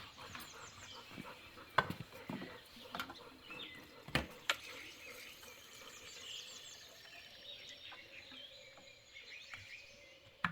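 Birds chirping in repeated short calls, with a few sharp clicks and knocks, the loudest about two and four seconds in.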